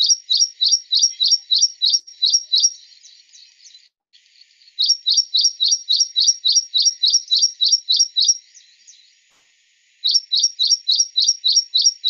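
Recorded song of an ashy prinia: fast runs of sharp, high repeated notes, about six a second, in three bouts with short pauses between them.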